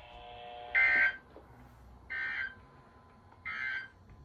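Three short electronic alert beeps from a weather radio receiver, about 1.4 s apart, each a bright tone under half a second long: the receiver alarming for the weekly test broadcast.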